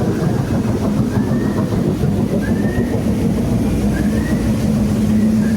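Raft-ride machinery running steadily, a dense low rumble with a steady hum, and a short rising squeak repeating about every second and a half.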